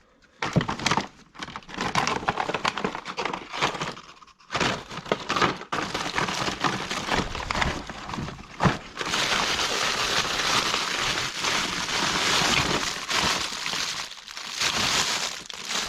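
Rummaging through stored belongings: plastic crinkling and rustling with scattered knocks and clatters, the crinkling turning continuous about halfway through.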